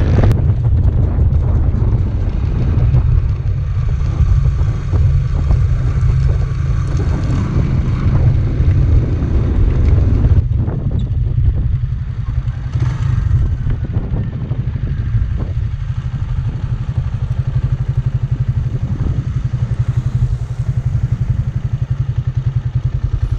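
Honda TMX 155's single-cylinder four-stroke engine running steadily under way at road speed, under a heavy, steady low rumble.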